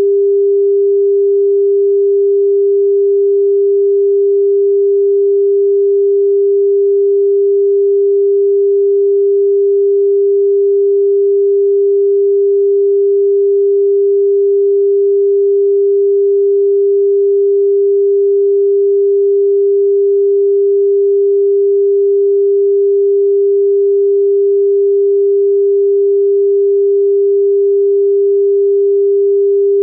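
A pure sine tone of about 399.5 Hz, held perfectly steady and unbroken.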